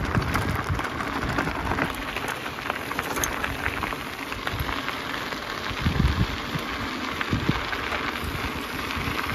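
Mountain bike tyres rolling over a loose gravel road, a steady crackle of small stones. Wind rumbles on the action camera's microphone underneath.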